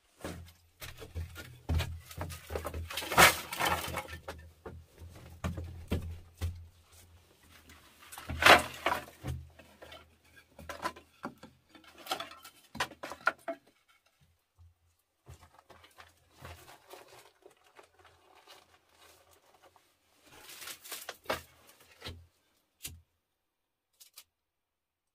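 Split bamboo strips clattering and knocking as they are set down and handled on a dirt floor inside a small earth hut: a run of irregular knocks and rustles, loudest about three and eight seconds in.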